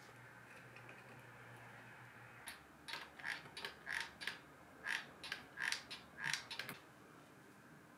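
Hot glue gun trigger being squeezed over and over, a dozen or so short, sharp clicks at an uneven pace, starting a couple of seconds in and stopping shortly before the end.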